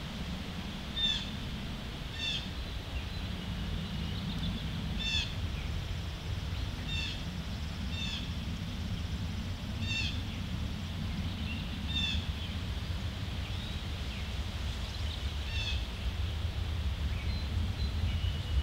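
A bird calling repeatedly outdoors: short, high chirping calls every one to three seconds, over a steady low rumble.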